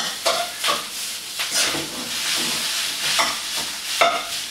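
Leftover cooked rice sizzling in a wok over low heat as a metal spatula stirs and breaks it up, with several sharp scrapes of the spatula against the pan.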